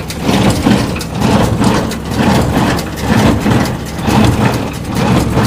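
John Deere 4230 tractor's diesel engine running steadily with a Case IH 8545 small square baler working behind it: a low rumble with mechanical rattling, swelling in a rhythmic pulse about once a second.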